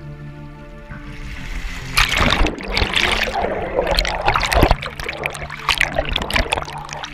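River water splashing and bubbling against a camera held at and just under the surface, loud and irregular from about two seconds in.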